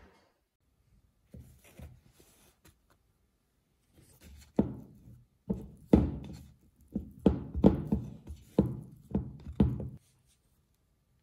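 Sticky brioche dough worked with a spatula in a wooden bowl: a run of about a dozen dull thumps, roughly two a second, as the dough and spatula knock against the bowl.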